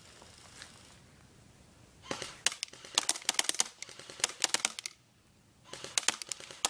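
CYMA RPK airsoft electric gun firing on full auto: a rapid clatter of shots for about three seconds starting two seconds in, then a second, shorter burst near the end.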